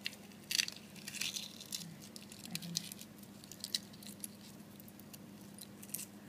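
Boiled egg shell crackling in small, irregular clicks as it is peeled off by hand.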